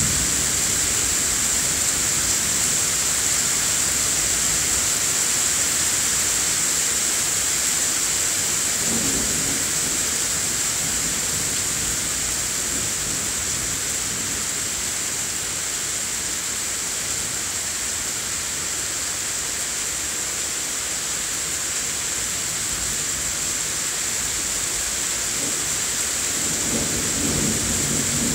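Steady rain hissing down during a thunderstorm, with low rolls of thunder rumbling about nine seconds in and again, building, near the end.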